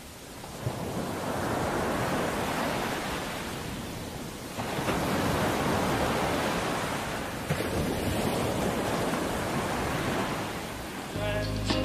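Rushing wind, swelling and easing in two long surges. Pitched music comes in just before the end.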